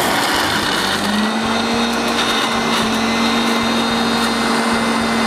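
Electric countertop blender (Turbo 5-speed) with a small dry-grinding jar, switched on and running steadily as it grinds raw shallots, garlic, red bird's-eye chillies, kencur and kaffir lime leaves into a spice paste with no water added. The motor starts suddenly and its hum settles to one steady pitch about a second in.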